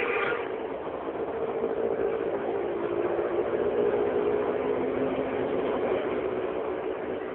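A motor running steadily under a hiss; its hum sinks a little in pitch past the middle.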